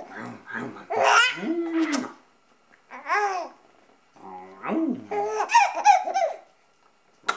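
A baby babbling and laughing in short bursts of high, wavering vocal sounds with pauses between them.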